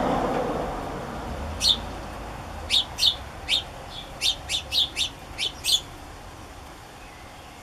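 House sparrows chirping: about a dozen short, sharp, high chirps in quick succession, stopping about six seconds in. These are typical begging calls of a fledgling being fed by an adult male.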